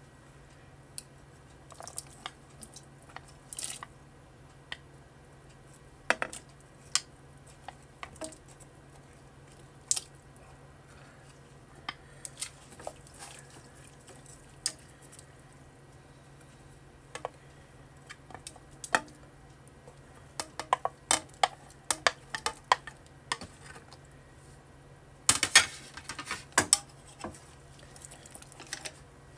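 Wooden chopsticks clicking and tapping against a metal pot as sliced vegetables are placed into it: a string of scattered light knocks, thickest and loudest near the end, over a faint steady low hum.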